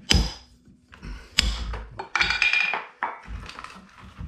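Hammer striking a steel flat pry bar, metal on metal, with ringing pings, the two loudest near the start and about a second and a half in, as the bar is driven under a rotted wooden bottom plate. About two seconds in comes a short high squeak as the wood is pried loose.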